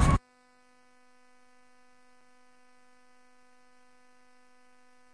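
Near silence after the preceding sound cuts off abruptly, leaving only a faint steady electrical hum.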